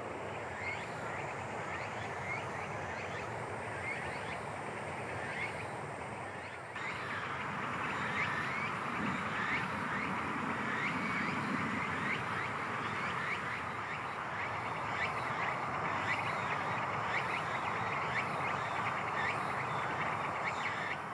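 Many short animal calls repeating over a steady rushing background; the background gets abruptly louder about a third of the way through.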